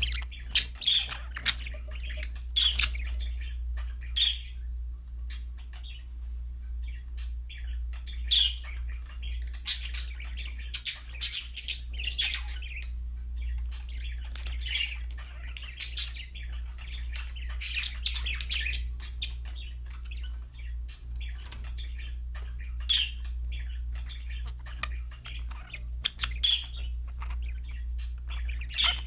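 Budgerigars chirping and warbling in quick, overlapping calls, with short squawks mixed in, over a steady low hum.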